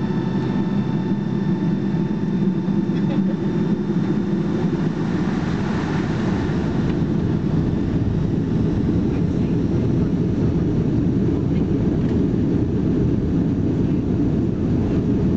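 Steady cabin noise of a Boeing 757-200 taxiing, heard from a window seat over the wing, with the engines at low taxi thrust. A faint high whine fades out about four seconds in.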